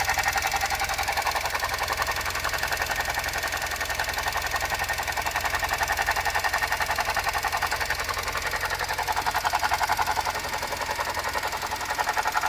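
Suzuki Jimny JB64's 660 cc three-cylinder turbo engine idling, with a fast, even rattle coming from the engine bay. The owner attributes this abnormal noise to a faulty alternator.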